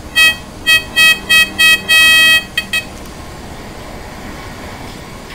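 Handheld pinpointer's buzzing alert tone sounding in short beeps about three a second, then a solid tone that stops about two and a half seconds in. This is the alert it gives on detecting a metal target.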